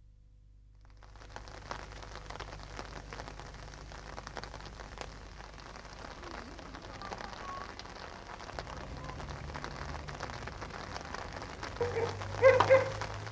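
Steady crackling outdoor noise with many fine clicks and a low hum, starting about a second in. Near the end comes a brief, loud pitched call or shout.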